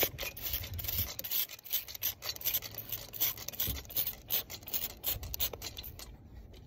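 Hand trigger spray bottle squeezed again and again, each pull a short spritz of water mist onto potting soil. The spritzes stop shortly before the end.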